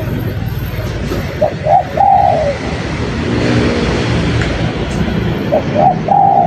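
Spotted dove cooing: two calls about four seconds apart, each a couple of short notes followed by a longer coo that falls away at the end, over a steady low rumble.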